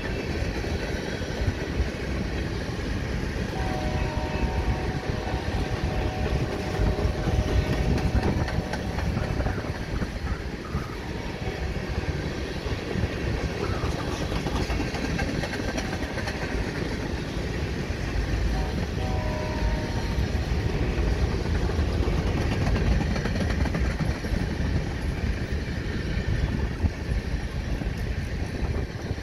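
Loaded freight train's covered hopper cars rolling past close by: a steady low rumble of steel wheels on the rails, with some clatter over the joints. Twice a faint horn chord of several notes sounds over it, once for about five seconds starting about four seconds in, and once briefly around nineteen seconds.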